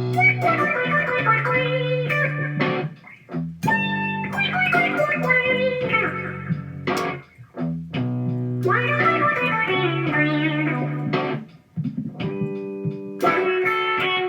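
Electric guitar played through the Noise Therapy FX Insomnia distortion pedal. It plays several phrases, each a held low note with higher notes ringing over it, with short breaks between the phrases.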